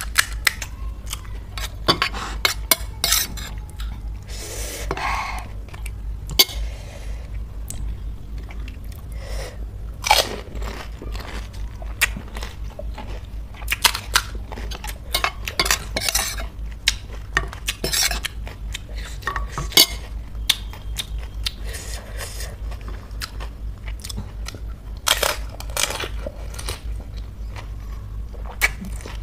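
Close-up crunching and chewing of pani puri, the crisp fried puri shells cracking in irregular bites, over a steady low hum.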